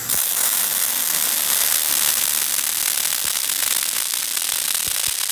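Four MIG welding torches arcing at once on the corners of an angle-steel flange frame: a steady, dense, spattering crackle.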